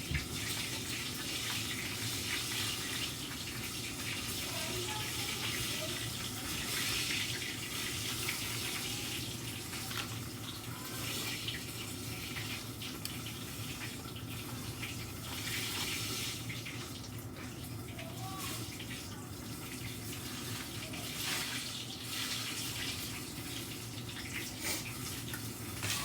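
Breaded chicken frying in hot oil: a steady sizzle with scattered small pops, over a low steady hum.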